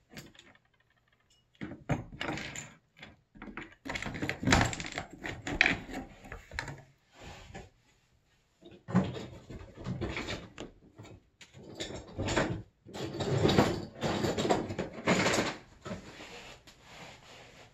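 Off-camera rummaging: objects knocked, shifted and clattered about in irregular bursts with short pauses, as someone searches for a tool.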